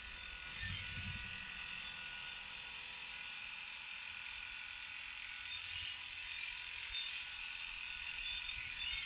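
Electric dog grooming clippers fitted with an attachment comb, buzzing steadily as they clip down a Kerry Blue Terrier's body coat.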